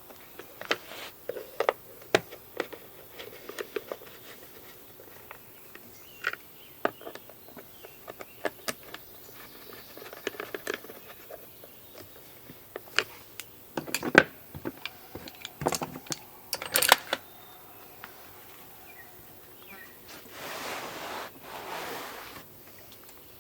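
Scattered light clicks and knocks of objects being handled, busier a little past halfway, with a brief rustling hiss about 20 seconds in.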